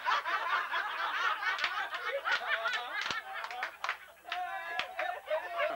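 Several women laughing hard together, with a few sharp hand claps in the middle of the laughter.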